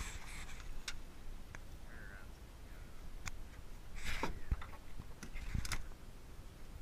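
A hooked catfish being landed into a boat: scattered knocks and thumps with a couple of short rustling bursts, over a steady low rumble of wind on the microphone.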